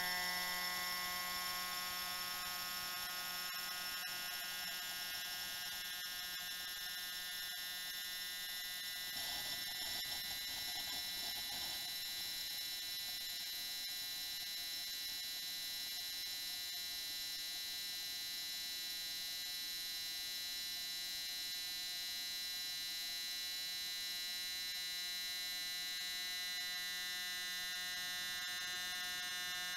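A 180 Hz saw wave played by a Bluetooth speaker sealed in a vacuum chamber, picked up by a microphone inside the chamber at air pressure near that of the summit of Mount Everest while air is slowly let back in. It is a steady buzzing tone whose upper overtones are stronger than its low pitch, with a faint rush of noise about ten seconds in.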